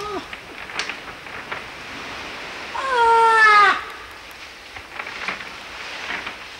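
Seal pup calling: one drawn-out call about a second long in the middle, falling slightly in pitch at the end, after a brief falling call right at the start. A few faint clicks and rustles come in between.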